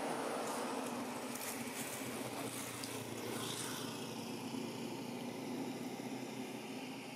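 Steady outdoor background rumble and hiss, with a few faint rustles or crackles about a second and a half and three and a half seconds in.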